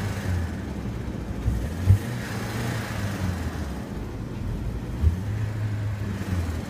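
BMW E46 3 Series's freshly rebuilt engine idling steadily, heard from inside the cabin soon after its first start. Two brief thumps come about two seconds and five seconds in.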